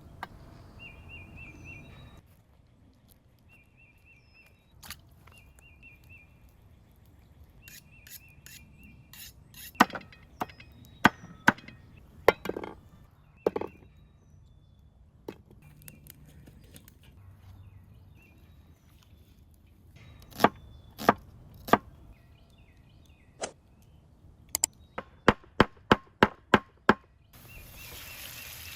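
Knife chopping on a wooden cutting board: scattered sharp strokes, then a quick run of chops near the end. A bird chirps in short repeated phrases in the first part. Food starts sizzling in a hot pan just before the end.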